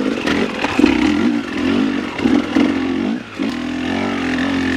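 2020 KTM 300 XC TPI two-stroke dirt bike engine, its revs rising and falling under the throttle for about three seconds, then settling to a steady note.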